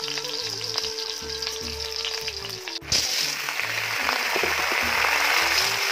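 Shallot pieces sizzling in hot oil in an iron wok. About three seconds in, the sizzle jumps suddenly louder as boiled snails in their shells go into the oil, and it stays loud.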